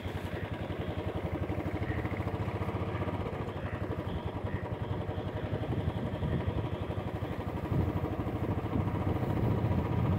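Motorcycle engine running as the bike is ridden slowly, a steady rapid beat of engine pulses that gets a little louder near the end.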